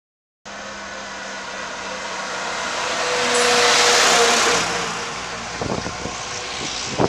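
A road vehicle passing close by: its tyre and engine noise swells to a peak about four seconds in and then fades. A few wind bumps on the microphone come near the end.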